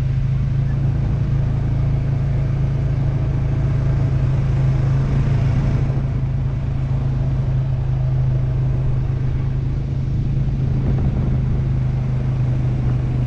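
ATV engine running at a steady cruising speed with a constant low drone, heard close up from a camera mounted on the machine, along with the low rumble of the ride over a dirt trail.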